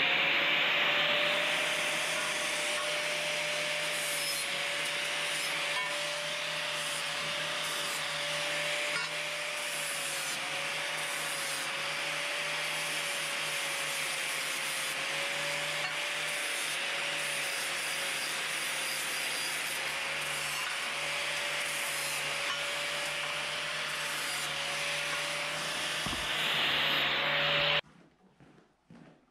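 Angle grinder running under load against metal bar stock: a steady motor whine over a harsh grinding hiss. It switches off abruptly near the end.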